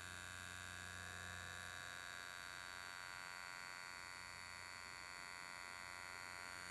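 Ultrasonic skin spatula running with its metal blade held against wet skin: a faint steady electric buzz, a low hum under a thin high whine.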